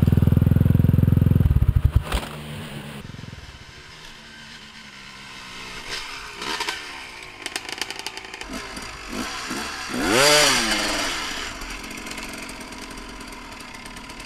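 Dirt bike engine running loudly, then cutting out about a second and a half in. After that, enduro bikes idle more quietly and one revs up and down a few times, the strongest rev near the middle, with some scraping and clattering.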